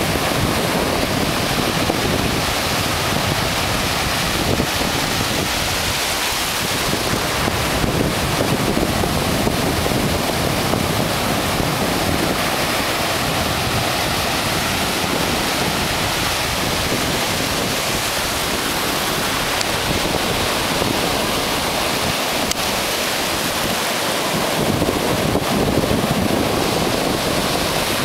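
Ocean surf breaking and washing up a sandy beach in a steady, loud rush, with wind buffeting the microphone.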